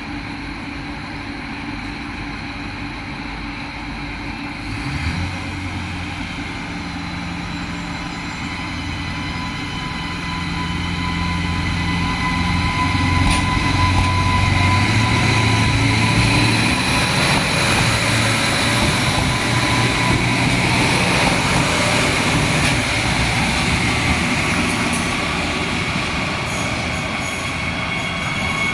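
Adelaide 3000 class diesel railcar moving slowly past along the platform, its diesel engine running under steady wheel-on-rail noise with thin high-pitched whines. The engine drone comes in about five seconds in, and the sound is loudest around the middle as the cars go by, easing toward the end.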